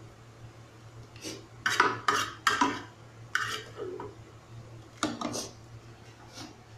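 A ladle scraping and clinking against a frying pan as a sauce is stirred: a quick run of short scrapes from about a second in, then a few more near the end.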